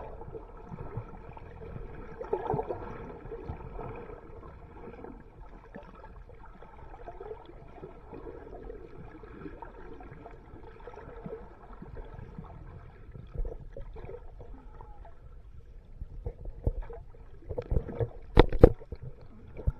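Underwater ambience picked up by a submerged camera: a muffled, steady wash of water noise with a faint hum that fades out about two-thirds of the way through. A few sharp knocks come a couple of seconds before the end.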